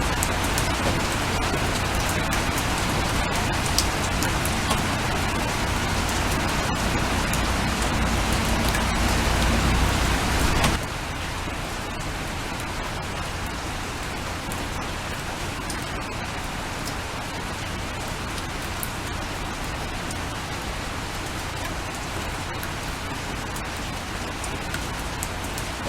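Steady rain falling, an even hiss with scattered drop ticks. The louder rain, with a low rumble under it, cuts off abruptly about eleven seconds in and gives way to lighter, quieter rain.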